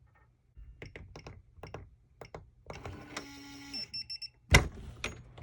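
latch.it RV keyless door lock being unlocked at its keypad: a run of short button clicks and beeps, then a longer electronic tone, and a loud sharp clack about four and a half seconds in as the lock releases.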